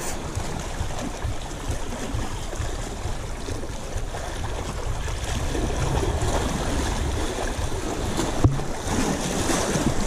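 Sea surf washing against a rocky shore, with wind buffeting the microphone in a steady, uneven low rumble. A single sharp click stands out late on.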